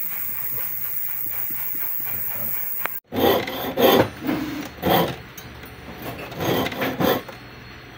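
Jeweler's soldering torch hissing steadily for about three seconds. After a sudden cut, a jeweler's saw cuts through a small 18k gold piece at the wooden bench pin in about six short strokes, with a pause in the middle.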